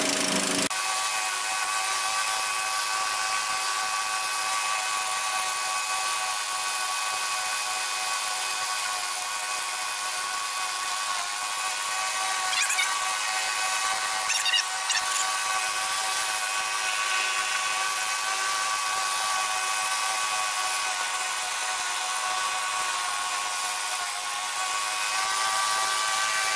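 Murray riding mower running steadily with its blades engaged, cutting grass on newly replaced blade spindles; heard as a steady, high-pitched whine.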